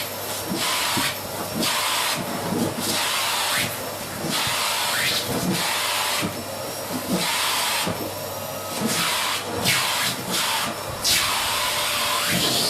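Vacuum cleaner running, its hiss thinning and swelling again roughly once a second.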